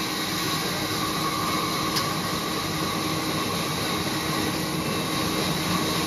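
Large sawmill band saw running steadily as a mango wood plank is fed through the blade: a constant whine over a hiss of cutting.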